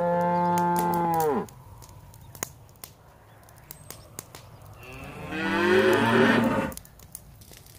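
Cattle mooing twice: a long call that ends about a second and a half in, then a louder, rougher moo from about five to seven seconds in. Faint scattered clicks sound between the calls.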